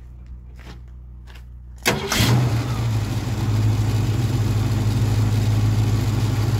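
Ford 302 V8 in a 1969 Mustang starting about two seconds in, catching at once with a short rev, then idling steadily. Before it, only a few faint clicks.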